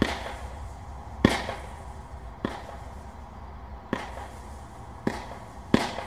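Small consumer firework cake (Brothers 'Performance') firing its comet and mine shots one after another: six sharp reports, irregularly spaced about one to one and a half seconds apart, each trailing off briefly.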